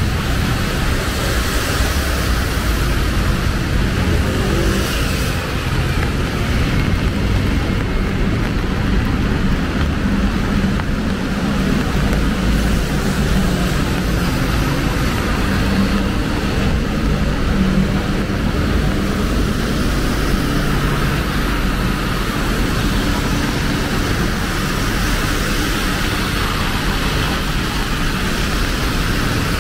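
Steady city street traffic in the rain: vehicle engines running with a constant hiss over a low rumble.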